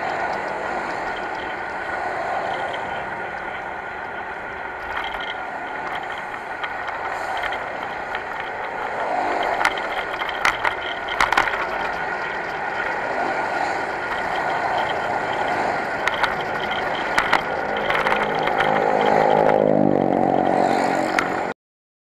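Motorcycle engine running while riding, with road and wind noise and scattered sharp rattles and knocks. The engine revs up near the end, then the sound cuts off suddenly.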